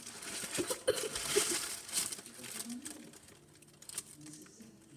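Close rustling and crinkling from handling right at the microphone, with scattered light taps, loudest in the first two seconds and fading after the middle. A faint voice murmurs underneath.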